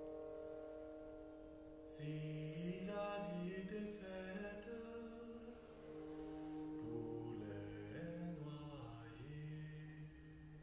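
Bowed cymbal drone: a cymbal edge drawn with a bow, giving sustained ringing tones. About two seconds in, a brighter stroke enters, and low pitches slide up and down beneath the ringing.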